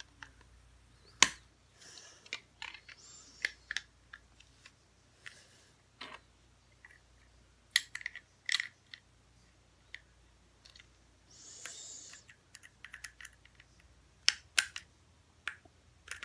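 Plastic Lego bricks clicking and clacking as they are handled and pressed together, in irregular sharp clicks with a few brief rustles.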